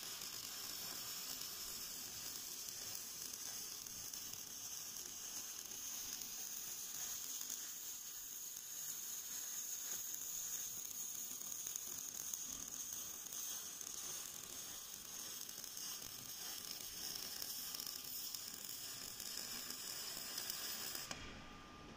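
Robotic MIG welding arc burning steadily: a continuous sizzling crackle that cuts off near the end.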